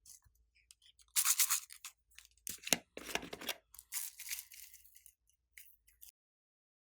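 Glossy slime being squished and stretched by hand, giving several short crackling, popping bursts.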